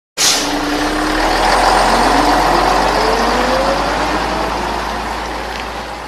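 Heavy bus engine starting up and accelerating away, its engine note rising in pitch under a loud rush of exhaust noise; it starts suddenly and fades out toward the end.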